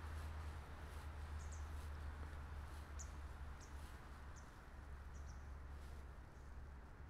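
Quiet riverside ambience: a small bird gives several short, high chirps, spaced irregularly, over a low steady rumble.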